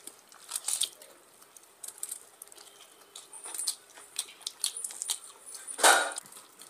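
Close-up eating sounds from people eating rice and curry by hand: chewing, lip smacks and fingers squishing through rice, with many short clicks throughout and one louder, longer sound near the end.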